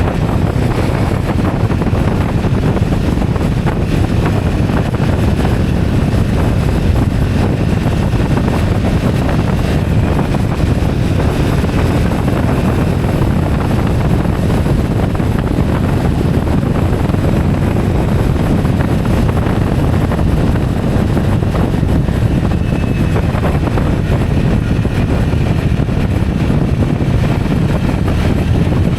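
Steady running noise of a moving vehicle, an even low rumble with wind on the microphone.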